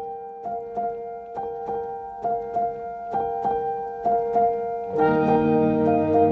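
Background music: a gentle piano melody of repeated notes, with fuller low sustained chords joining about five seconds in.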